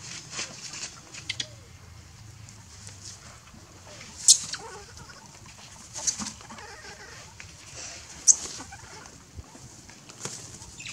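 Young macaques squealing in short, sharp high-pitched cries as they tussle over a baby. The three loudest cries come about four, six and eight seconds in.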